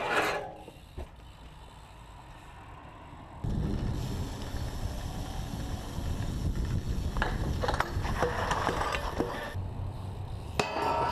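BMX bike tyres rolling over concrete, a steady low rumble with scattered sharp clacks and rattles from the bike. The sound changes abruptly at cuts between clips, getting louder about three and a half seconds in, with a sharp knock near the end.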